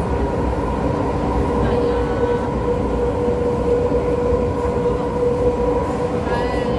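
MTR Island Line M-Train running at steady speed, heard from inside the passenger carriage: a constant rumble of wheels on rail with a motor whine held at one pitch.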